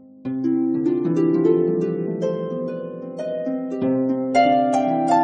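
Background music: a gentle harp-like melody of plucked notes, each ringing on into the next, growing louder shortly after it begins.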